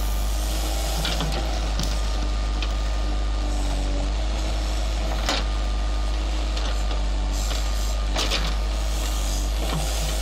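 JCB Sitemaster backhoe loader's diesel engine running steadily under digging load as the backhoe works through soil and tree roots. A few short sharp knocks from the bucket tearing through roots and earth, the loudest about five seconds in.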